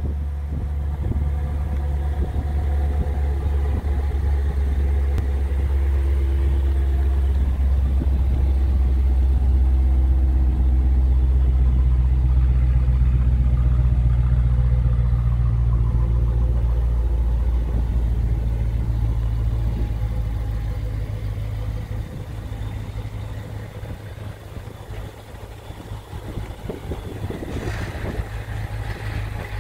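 Dodge Challenger 392 Hemi's 6.4-litre V8 idling with a steady low burble. It is louder midway, then fades somewhat toward the end.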